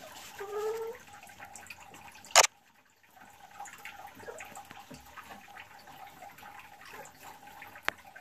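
Boris Brown hen in a straw nest box just after laying her first egg: one short, low call rising slightly in pitch about half a second in, then a sharp, loud tap of her beak pecking in the nest about two and a half seconds in and a smaller tap near the end.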